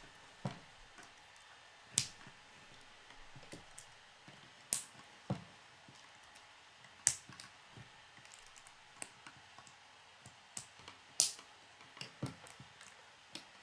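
Plastic K'nex rods and connectors clicking as they are snapped together and handled, in irregular sharp clicks about every second.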